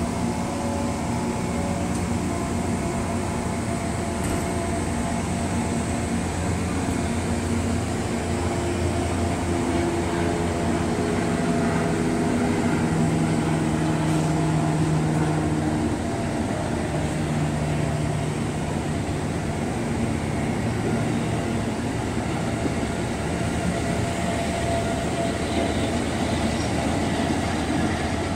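Amtrak Amfleet passenger cars rolling past close by: a steady rumble of steel wheels on the rails, with a low hum in it that drifts slightly up and down.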